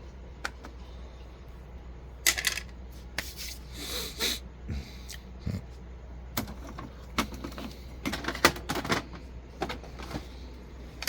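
Irregular clicks and light plastic knocks of an Epson EcoTank inkjet printer being handled and closed up, with its power being switched off and back on.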